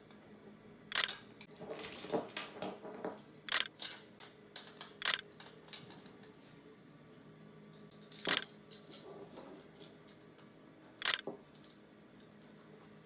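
Camera shutter clicks, five sharp single snaps a second and a half to three seconds apart, as photos are taken of a pose. Softer rustling sounds fall between the first two clicks.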